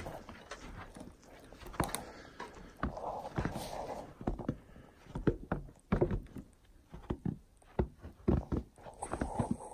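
Footsteps thudding on the plank deck of a snow-dusted suspension footbridge: a steady walking pace of about two steps a second.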